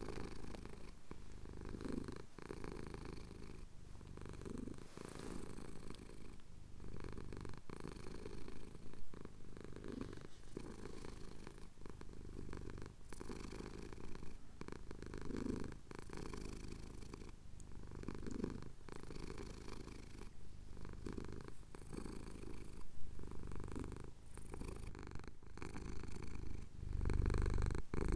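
A domestic cat purring steadily while its chin is scratched. The purr swells and eases about every two to three seconds and grows louder near the end.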